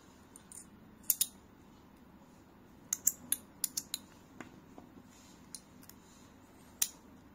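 Sharp clicks of small metal fidget-slider parts with inset magnets snapping together and coming apart as they are handled: two loud clicks about a second in, a quick run of about seven near the middle, and one loud click near the end.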